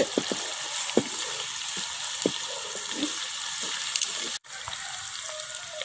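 Onions and ginger-garlic paste frying in hot ghee in a pan: a steady sizzle with scattered small pops. It breaks off briefly about four and a half seconds in and comes back quieter.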